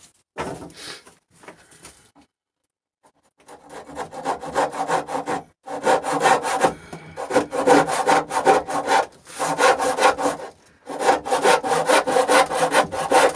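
Brass-backed hand saw cutting into the end of a birch rail, its teeth freshly sharpened and set, in quick rhythmic rasping strokes. The sawing starts about three and a half seconds in, after a few light taps of handling, and pauses briefly twice.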